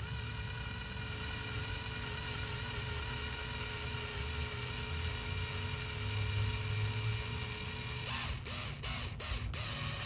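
Variable-speed electric drill running steadily as its bit drills out the die-cast metal rivet post on a Hot Wheels car's base, a steady motor whine. The whine breaks up briefly a few times about eight seconds in.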